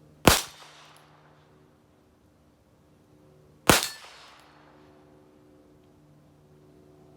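Two single shots from a Heritage Rough Rider .22 single-action revolver, about three and a half seconds apart, each a sharp crack with a short fading tail.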